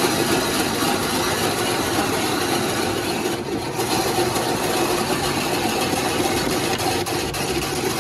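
Motorised ice-shaving machine running steadily, its spinning blade shaving a block of ice pressed down by the screw press into fine snow.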